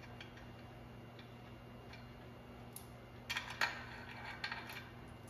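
Scattered light clicks of hand tools on metal, with a short cluster of sharper clinks a little past halfway, over a steady low hum.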